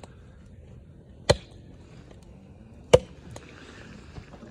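Axe chopping into a wooden log: two sharp, loud strikes about a second and a half apart, sending wood chips flying.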